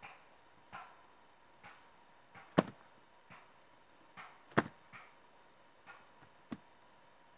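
Wooden sticks of a trap frame knocking and clicking together as they are handled: light taps throughout, with two sharp wooden knocks a couple of seconds apart and a smaller one near the end.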